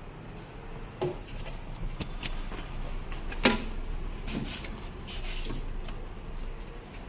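Plastic fridge liners and fittings being handled inside a refrigerator: light rustling with scattered clicks and knocks, the loudest about three and a half seconds in.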